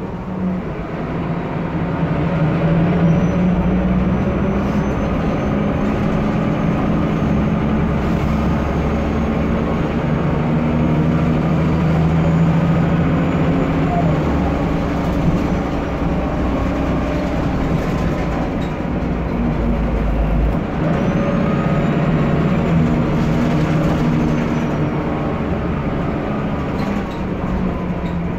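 Mercedes-Benz O405G articulated city bus's diesel engine running as the bus drives, its note rising and falling several times as it pulls and eases off.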